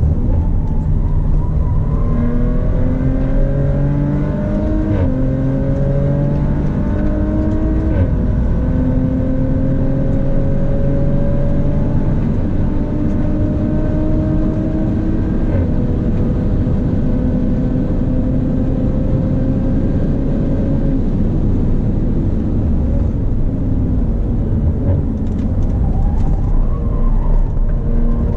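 Audi B9 RS4's twin-turbo V6 with a Milltek exhaust, heard inside the cabin, accelerating hard up through the gears. The pitch rises, then drops sharply at three upshifts, about 5, 8 and 15 seconds in. It levels off, sinks as the car slows from about 21 seconds, and climbs again near the end.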